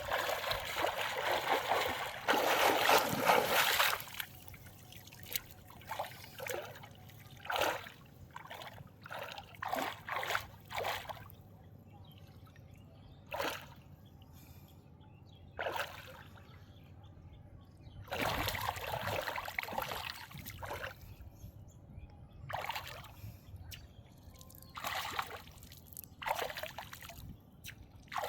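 Water splashing and dripping in shallow water: a long spell of splashing at the start and another about two thirds of the way through, with short separate splashes and drips between.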